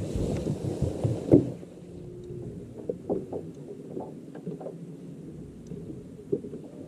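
Knocks and bumps on a fishing boat over a low steady hum, with a short hiss in the first second and a half.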